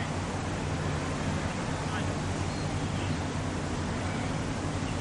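Steady outdoor background noise, heaviest in the low range, with faint distant talking.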